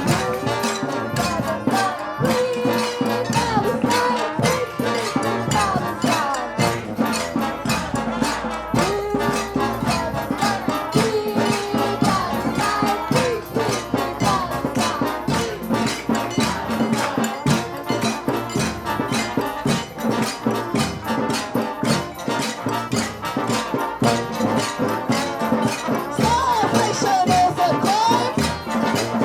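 A crowd making steady rhythmic noise with shakers, rattles and struck percussion, with wavering pitched sounds running over the din.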